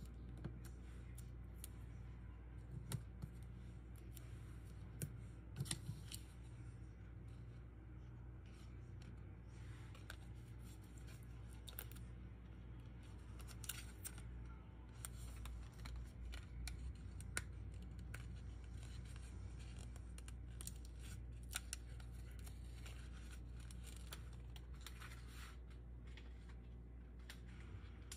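Faint, irregular small clicks and snips scattered throughout, over a steady low hum.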